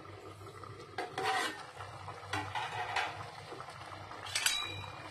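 Steel pot lid being handled and lifted off a pot, with metal clinks and knocks; a clank about four seconds in rings briefly.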